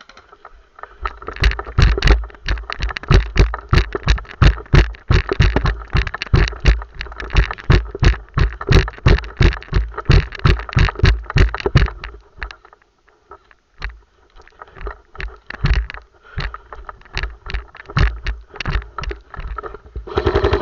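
Running footsteps, with the body-worn camera jolting at each stride, about three steps a second; after about twelve seconds they slow and soften to a walk. Right at the end a rapid burst of airsoft gunfire starts.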